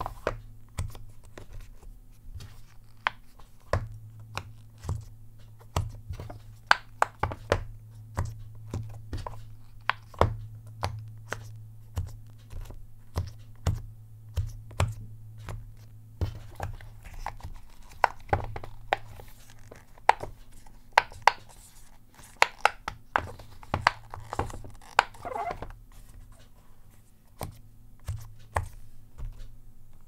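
Fingers typing on a silicone Pop It fidget-toy keyboard, pressing its rubber bubbles in and out with irregular popping clicks, about two to three a second, over a low steady hum.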